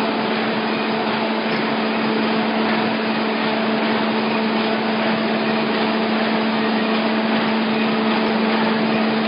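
Paper bag making machines with inline flat-handle units running in production: a steady mechanical din with a constant low hum under it.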